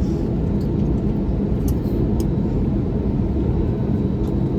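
Cabin noise of an Airbus A320neo taxiing after landing: a steady low rumble from the idling engines and rolling wheels, with a low hum through it and a few faint ticks.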